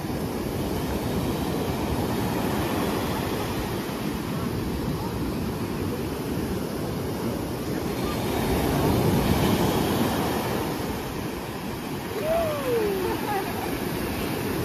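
Ocean surf washing up the beach in a steady rush that swells for a couple of seconds midway. A short falling cry is heard near the end.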